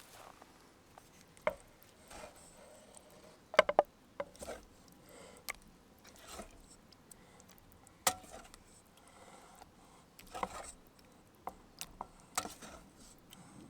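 Scattered light clicks and knocks of small objects being handled, a quick cluster of sharp ones about three and a half seconds in and another sharp one about eight seconds in, with quiet between.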